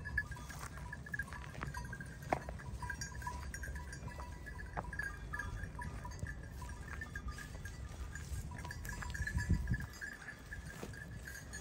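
A flock of sheep milling about, with occasional bleats over a thin, steady tinkling at one pitch and a low rumble that swells about nine seconds in.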